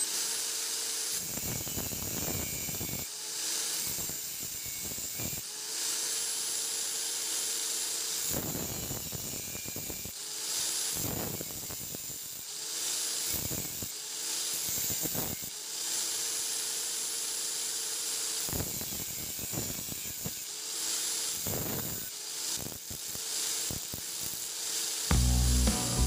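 Electric angle grinder running with a steady motor whine, while an old drill bit is touched against the wheel in brief rasping passes every second or two to grind it into shape.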